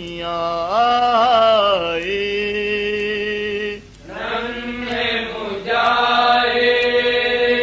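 A male voice chanting an Urdu noha, a mourning lament, in long held notes that bend and waver. It comes in two phrases with a brief break about four seconds in.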